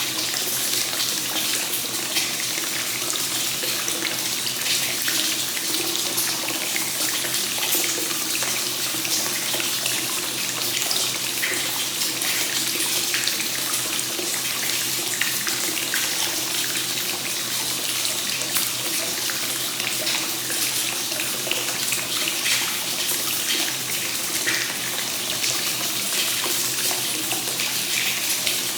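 Hot spring source water pouring without pause from a spout into a bath and splashing on the water's surface: a steady, even rush of water.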